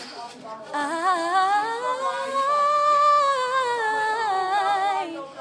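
A young woman singing unaccompanied in head voice: one long held note with vibrato, starting about a second in, its pitch climbing to a peak and sinking back before it ends.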